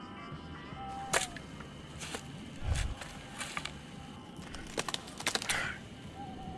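Scattered sharp clicks and cracks, with a dull thump a little under three seconds in and a quick run of clicks about five seconds in, over a steady low background hum.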